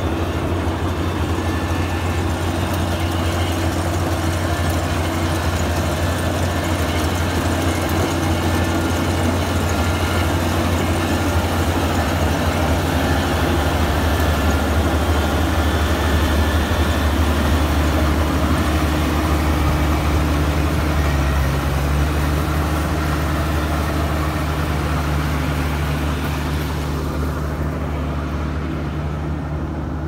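Rice combine harvester running steadily while reaping, a continuous low engine drone with machinery noise over it. The sound turns duller near the end.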